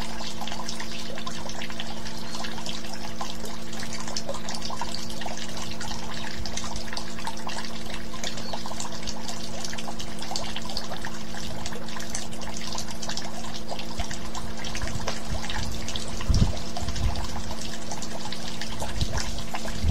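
Steady hissing, crackly background noise with a low hum under it, and a few low thumps about sixteen seconds in and again near the end.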